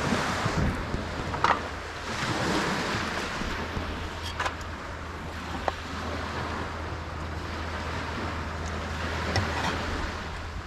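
Small waves washing onto a sandy beach, with wind buffeting the microphone. A few light clicks stand out over it, about four times.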